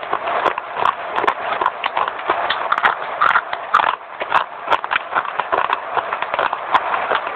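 A person chewing dry baked clay close to the microphone, fast, crisp crunches coming several times a second in an uneven rhythm.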